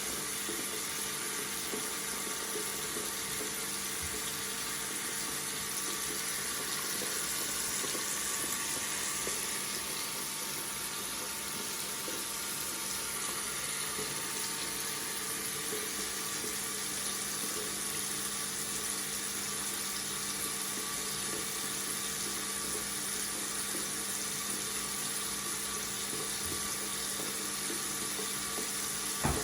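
Water tap running steadily into a sink, a continuous even stream of splashing water.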